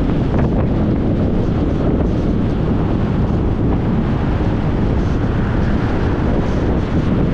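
Steady wind noise on a hood-mounted camera's microphone as the vehicle drives along the road, with the low rumble of tyres on the road surface beneath it.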